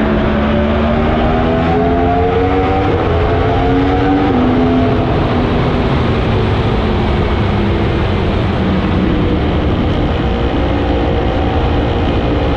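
Yamaha R1M's crossplane inline-four, on a decatted Black Widow aftermarket exhaust, pulling hard with its note rising for about four seconds and breaking twice as the rider shifts, then holding a steady cruise. Heavy wind rush runs underneath, and the sound is heard inside a road tunnel.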